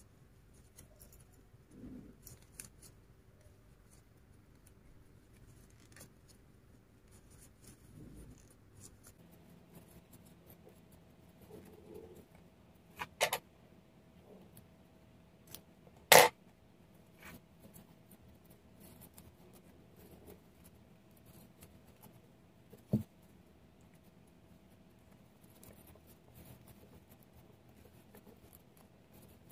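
Small scissors snipping through thick twisted macramé cord: a few sharp snips, the loudest a little past halfway, with a shorter click later. Faint rustling of cord and crochet hook between the snips.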